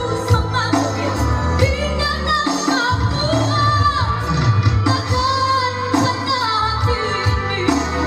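A girl singing a song into a microphone, accompanied by an electronic keyboard with a steady bass line.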